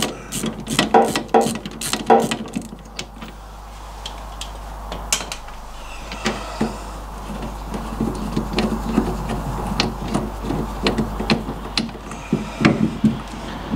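Ratchet clicking in quick runs near the start, then scattered light metallic clicks and knocks as the mounting bolts of an MGB's front lever-arm damper are worked loose with a deep socket.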